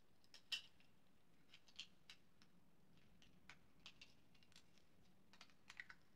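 Faint, scattered small plastic clicks and taps from the battery box of a battery-powered string of Christmas lights being opened and its batteries taken out. The loudest click comes about half a second in, with a quick cluster near the end.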